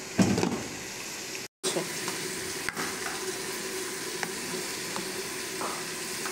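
Tamarind pulp boiling hard in water in a steel pan, a steady bubbling hiss, with a spoon stirring and a few light clinks against the pan. A short clatter of the steel lid near the start.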